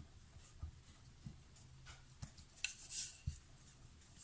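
Rolling pin working a ball of stiff dough on a wooden rolling board: about five faint, soft knocks with light rubbing in between.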